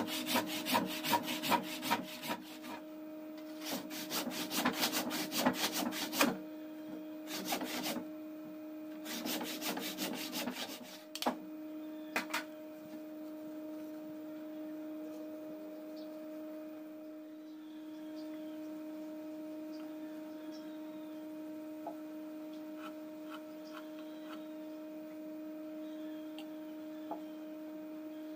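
A hatchet blade scraping and shaving a wood block clamped in a vise, in quick rasping strokes that come in several runs with short pauses. After about twelve seconds the scraping stops, leaving only a steady low hum.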